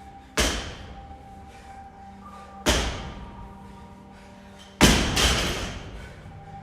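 Three heavy thuds of workout equipment landing during a set of repetitions, about two seconds apart, each ringing on for a second or so; the last is the loudest.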